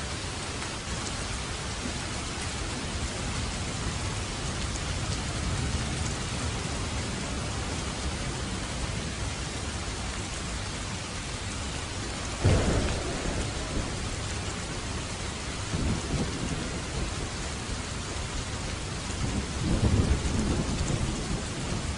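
Steady rain falling, with thunder: a sudden loud clap about halfway through that trails off, then lower, weaker rumbles near the end.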